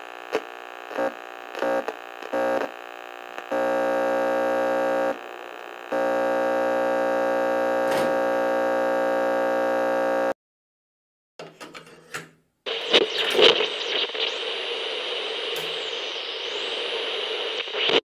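Radio sound effects: a steady buzzing tone, broken by clicks and jumps in loudness, cuts off about ten seconds in. After a brief gap and a few crackles, radio static hisses with faint whistles sliding up and down.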